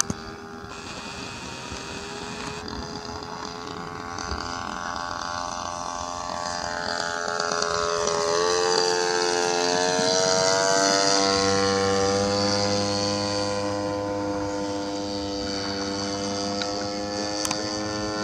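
Spitfire-type propeller aircraft flying past, its engine drone growing louder and then dropping in pitch as it passes about eight seconds in. A steady low hum joins at about eleven seconds.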